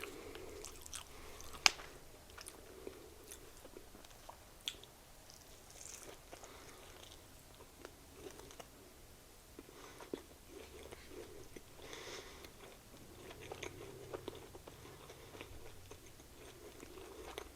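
Close-miked chewing and biting of a Popeyes spicy blackened chicken sandwich (unbreaded chicken with pickles and mayo): soft, irregular wet mouth sounds with scattered sharp clicks, the loudest a couple of seconds in.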